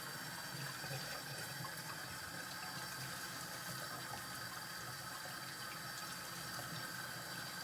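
Kitchen tap running steadily into a sink during dishwashing.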